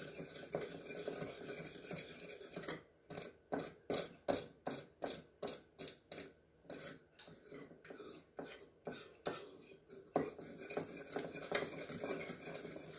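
A metal fork stirring and whisking sugar and cinnamon in a small bowl, the tines scraping and clicking against the bowl to break up lumps. From about three seconds in there is a run of quick, even strokes, about three a second, before it goes back to scraping and stirring.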